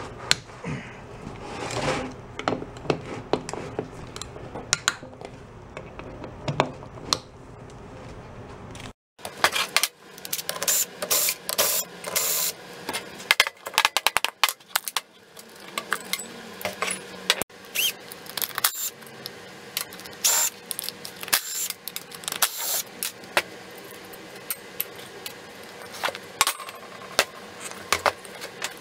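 Small metal parts clinking and rattling on a steel workbench, a quick irregular run of sharp clicks, as the nuts and bolts holding the halves of a split motorcycle rim together are taken out.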